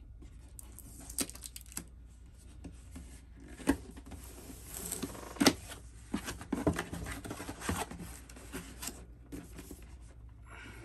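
Cardboard box being handled and opened: scattered taps, scrapes and rustles of the cardboard flaps and sleeve, busiest in the middle.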